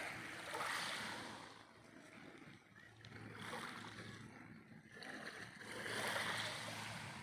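Small waves on a calm sea washing in and receding, swelling and fading three times.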